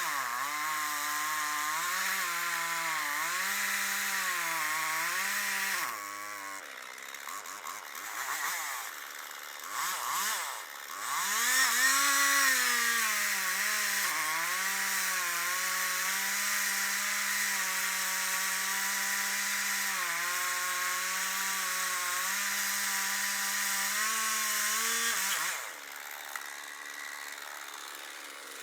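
Chainsaw engine running at high revs through a cut, its pitch wavering under load. It drops back about six seconds in, revs up hard again around twelve seconds, holds steady, and falls away near the end.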